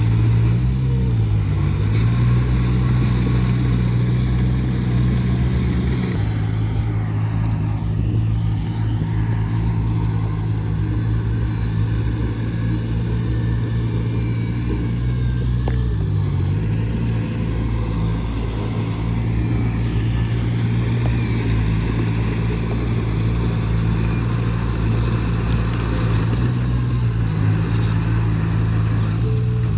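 Heavy diesel engine of earthmoving machinery running steadily under load, its pitch dipping briefly a few times as it lugs.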